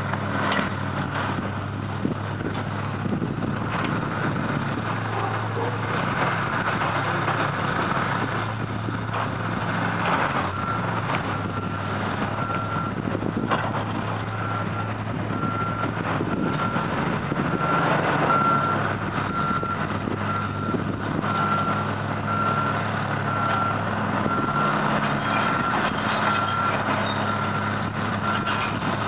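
Diesel engines of hydraulic excavators running steadily while broken concrete rubble clatters and knocks as a bucket works the pile. From about ten seconds in, a backup alarm beeps steadily about once a second.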